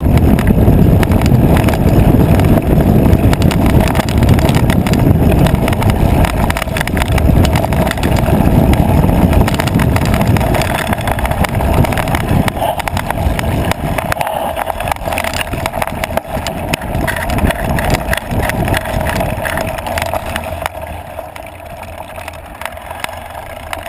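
Mountain bike riding fast down a rough dirt singletrack, heard through the bike-mounted camera's microphone: a rumble of wind on the microphone with constant rattling, clicks and knocks from the bike over the bumpy trail. The noise is heaviest in the first half and eases off after about fourteen seconds, then again near the end.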